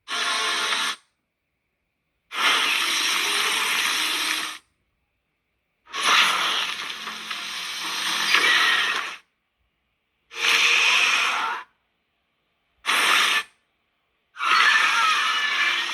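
A string of six separate creature sound effects for a movie monster. Each is a noisy, rasping burst lasting from about half a second to three seconds, with dead silence between them.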